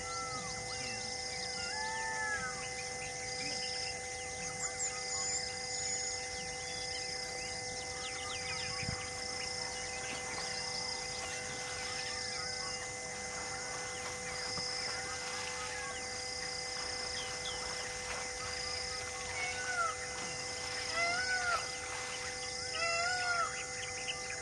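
Wild outdoor ambience of birds and insects: a bird gives short rising-and-falling calls again and again, more often toward the end, over constant insect chirping. A high chirp repeats about once a second.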